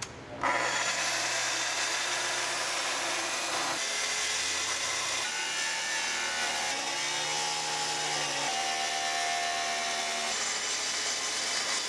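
Festool plunge track saw running and cutting through a wooden countertop along its guide rail. The motor's tone shifts in steps several times as the load changes during the cut.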